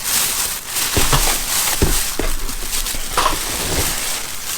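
Plastic packaging of rivet packs crinkling and rustling as it is handled, with scattered clicks and knocks.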